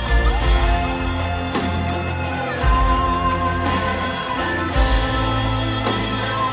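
A band playing live, led by guitar over a bass line, with a steady beat of about two to three strokes a second.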